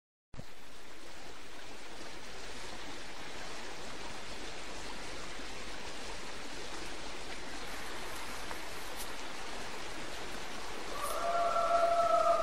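Steady hiss of open-air night ambience, then near the end a long, steady howl from a wild canid, wolf or coyote kind, starts and sinks slightly in pitch.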